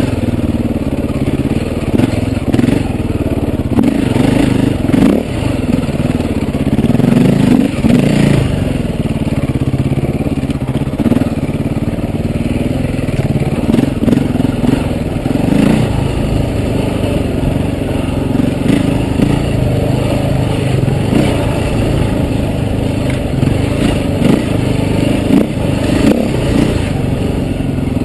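KTM enduro dirt bike engine running under way, its pitch rising and falling as the throttle is opened and closed, with knocks and clatter from the bike riding over rough ground.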